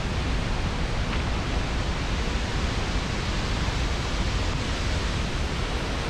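Skógafoss waterfall heard close to its base: a steady, dense rush of falling water with a heavy low rumble.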